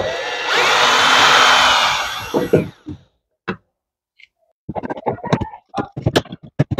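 Cordless power driver spinning out a screw from a door trim panel, its motor whine rising as it speeds up and falling away as it stops after about two and a half seconds.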